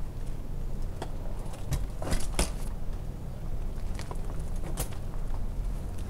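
Tree-climbing gear being handled: scattered sharp clicks and scrapes of rope, metal carabiners and gloved hands against the bark, loudest in a cluster about two seconds in. A steady low rumble runs underneath.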